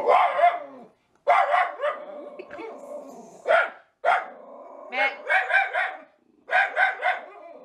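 Miniature schnauzer barking in repeated bursts, several quick barks in a row in the second half, reacting to workers outside the door.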